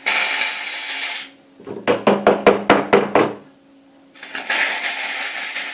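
Aerosol can of shaving foam spraying foam out with a hiss, in two bursts. Between them comes a quick run of about ten knocks.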